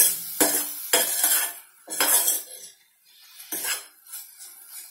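Steel spoon scraping and stirring tomato and grated paneer around a stainless steel pan, in quick repeated strokes that thin out near the end.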